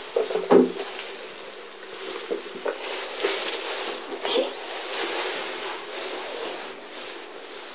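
Rustling and handling noise from a hand-held camera moved close against clothing, with a couple of sharp knocks about half a second in, over a steady low hum.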